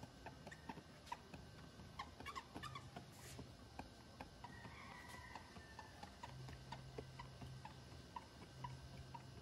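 Faint rubbing with scattered small ticks and taps: a foam applicator pad polishing rubbing compound onto a plastic car headlight lens.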